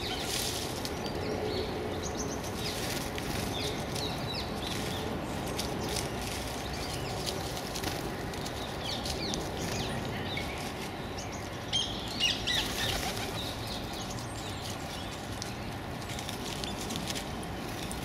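Small songbirds, blue tits and great tits, giving short high chirps on and off over a steady low background rumble, with a brief louder flutter of wings about twelve seconds in.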